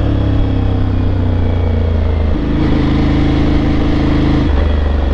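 Aprilia Tuareg 660's parallel-twin engine running under the rider while the bike slows, heard from the saddle with its exhaust note. The engine note shifts abruptly twice, about two seconds in and again near the end.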